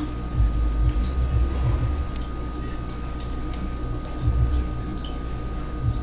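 Water dripping and trickling in an overflowed kitchen sink after the supply has been shut off, as small irregular drips, with irregular low thumps.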